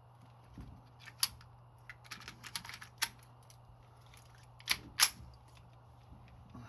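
Ruger SR-22 .22 rifle: sharp cracks and metallic clicks. There is a loud one about a second in, another about three seconds in, and two close together near five seconds, with a patter of smaller clicks between two and three seconds.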